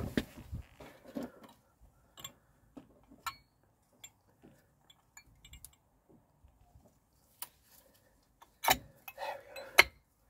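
Scattered small metallic clicks and clinks of brake parts being handled at a VW T5.1 front caliper carrier, with quiet gaps between them. The sharpest two come near the end, with a short clatter between them.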